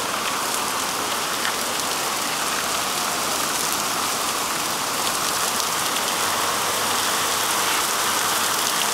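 Heavy rain pouring down in a steady, dense hiss, with a fine patter of individual drops.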